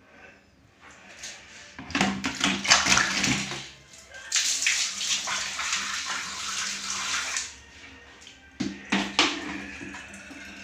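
Water poured from a plastic bucket splashing onto a tiled floor and into a floor drain, draining the water after the drain was unclogged of hair. There is a splashy pour about two seconds in, then a longer steady gush until about seven and a half seconds. A few sharp knocks come near the end.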